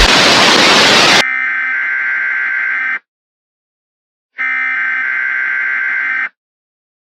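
A loud burst of static for about a second, then two Emergency Alert System SAME header data bursts, each about two seconds long, separated by about a second and a half of silence.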